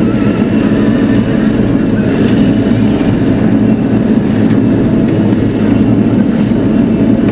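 Bobcat E42 mini excavator's diesel engine running steadily at working speed, with a few faint knocks.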